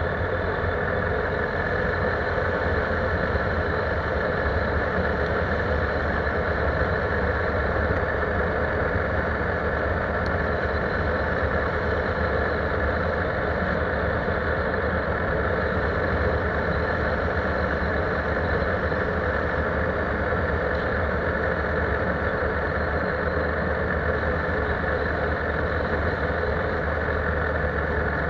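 ATV engine running steadily while riding along, its drone holding an even pitch and level with no revving or letting off.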